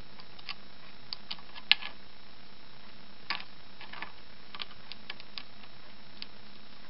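Small irregular metal clicks and taps from the mechanism of a Roto multipoint lock's main lock case as its parts are pressed and fitted by hand, with one sharper click a little under two seconds in.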